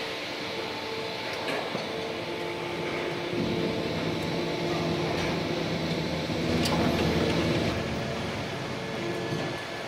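Plastic injection moulding machine running through a moulding cycle: a steady mechanical hum with several fixed tones. It grows louder and deeper from about three seconds in until nearly eight seconds, with a few sharp clicks along the way.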